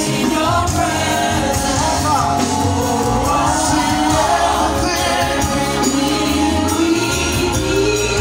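Live gospel worship song: a worship team singing with a band, played loud through the PA.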